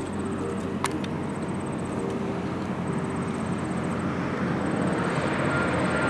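A steady engine rumble that slowly grows louder, with a single sharp click about a second in.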